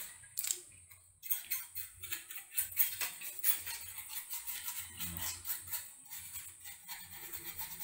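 Rapid light clicks and small rattles from a desktop PC motherboard being handled and cleaned of dust around its sockets.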